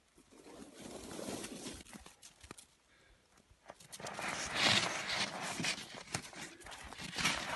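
Scuffling and crunching in snow with irregular knocks at close range, louder from about four seconds in, as a displaying capercaillie comes right up to the camera.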